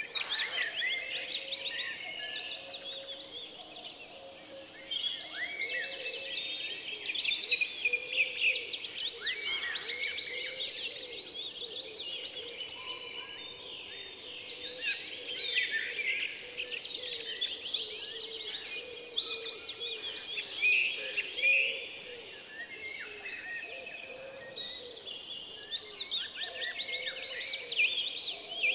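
A chorus of many songbirds chirping and calling together, loudest around the middle where a fast, high trill stands out.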